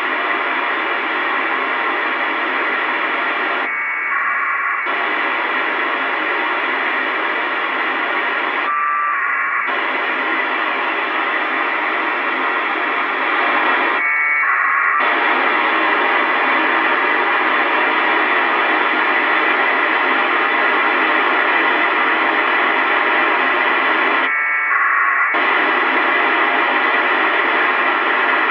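FM radio receiver hiss on the ISS packet frequency, broken four times by a short burst of packet-radio data tones about a second long: APRS packets relayed by the International Space Station's digipeater.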